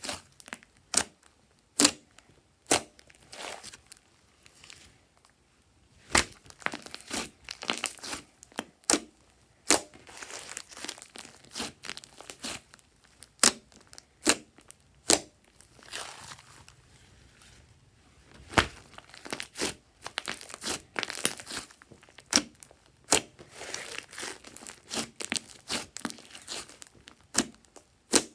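Slime being squeezed and stretched by hand, giving irregular sharp pops and crackly, sticky tearing sounds as air pockets burst, with a couple of short pauses.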